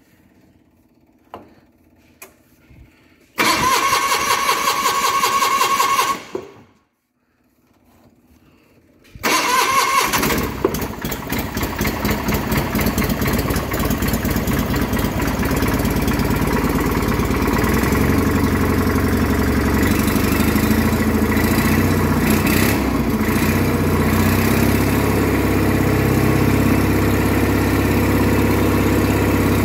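1989 John Deere 420 garden tractor engine cranked by its electric starter after the fuel was primed. A first crank of about three seconds does not fire. After a pause, a second crank catches about nine seconds in, and the engine keeps running, settling into a steady idle.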